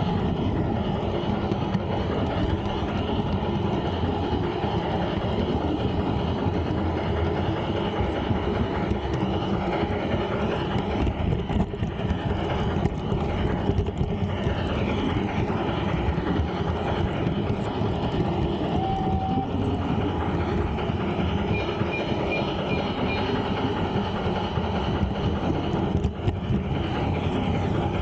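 Close-up running noise of an LGB G-gauge garden train headed by a Saxon IV K steam locomotive model: wheels rolling on the brass rails with a steady rumble and clicking over the rail joints, along with the drive motor and gears.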